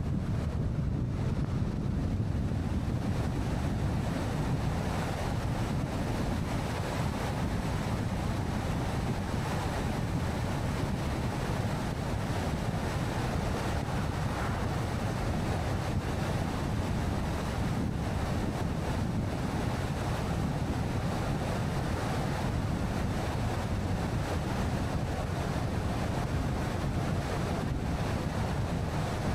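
Steady road and wind noise of a car driving along a highway, a constant low rush with no changes.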